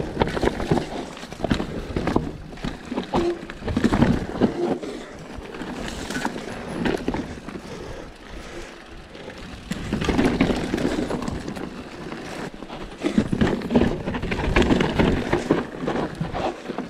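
Mountain bike ridden down a rough, rocky trail: a steady rush of tyre noise with frequent sharp knocks and rattles from the bike.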